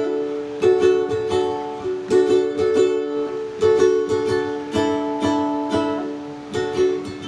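Strummed chords on a plucked string instrument in a steady rhythm, the instrumental intro of a song.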